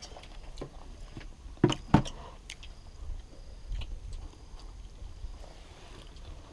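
Two sharp knocks in quick succession about two seconds in, over faint scattered clicks and a low rumble.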